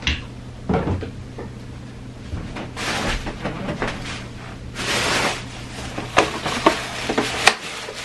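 A thin plastic shopping bag rustling and crinkling as groceries are handled, with a string of sharp clicks and knocks from items and packaging near the end.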